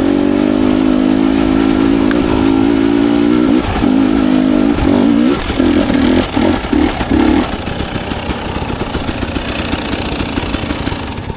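Dirt bike engine idling steadily, then running in a string of short uneven pulses that break off about seven seconds in, leaving a lower rough noise.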